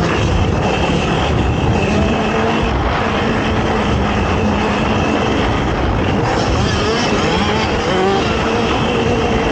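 ATV engine running hard under racing, a continuous loud motor note with its pitch shifting up and down as the throttle changes.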